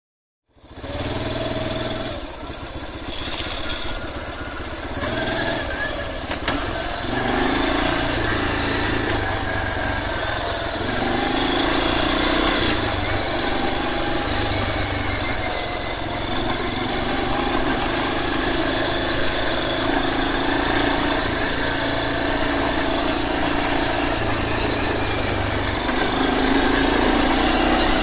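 Yamaha Big Bear 350 ATV's single-cylinder four-stroke engine running as the quad is ridden, its note rising and falling with the throttle. The sound cuts in sharply about half a second in and gets louder around seven seconds in and again near the end.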